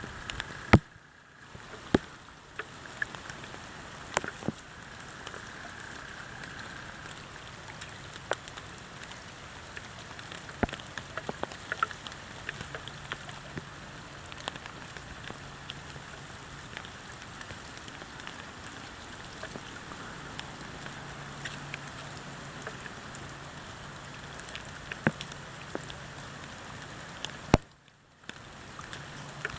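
Steady rain falling, a constant hiss with many scattered sharp drop clicks. The sound briefly drops out twice, about a second in and near the end.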